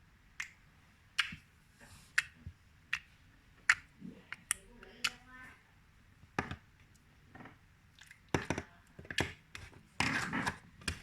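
Slime being squeezed and worked in the hands, giving off sharp, irregular clicking pops as trapped air bursts, with a stretch of denser squishing near the end.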